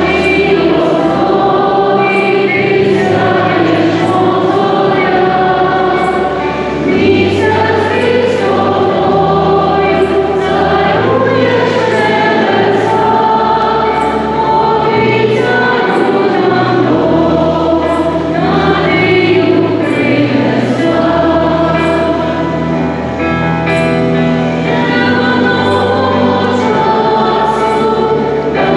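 Choir singing a hymn over held low accompanying notes that change every couple of seconds: the entrance hymn as the Mass begins.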